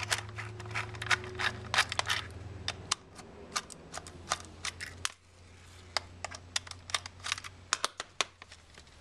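Small, quick, irregular clicks and ticks from a precision screwdriver turning tiny screws out of the plastic shell of Fat Shark Predator FPV goggles, along with hands handling the plastic. A steady low hum runs underneath.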